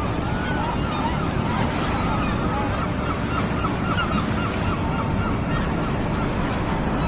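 Birds calling over a steady rushing noise, with a quick run of repeated short calls about three seconds in.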